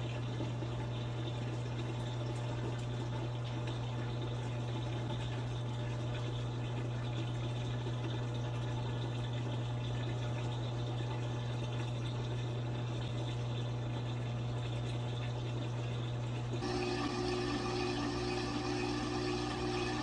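LG Mega Capacity top-load washing machine filling with water on its bulky/bedding cycle, over a steady low hum. About three seconds before the end its motor starts turning the tub, and a whine with several steady tones comes in, slightly louder.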